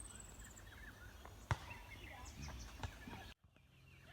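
Small birds chirping and singing, with a high, fast trill falling in pitch at the start, and a few sharp knocks in between. The sound cuts out for a moment near the end.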